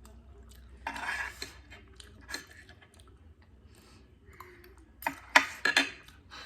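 Eating utensils scraping and clinking against dishes during a meal of instant noodles: a short scrape about a second in, scattered light clicks, and a cluster of sharp clinks about five seconds in, the loudest sounds.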